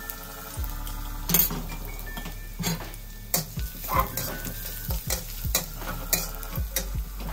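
Shallots sizzling in oil in a wok while a metal wok spatula stirs them, scraping and clinking irregularly against the pan from about a second in.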